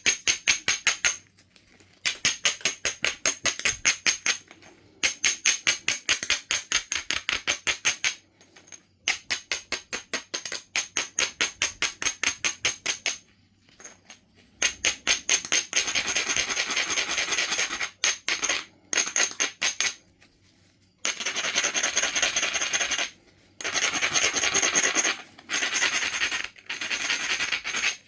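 Knife River flint being rubbed with an abrader: quick back-and-forth scraping strokes, about six to eight a second, in runs of one to three seconds. From about halfway it turns to denser, near-continuous grinding with short breaks. This is edge and platform grinding, the preparation before flakes are struck.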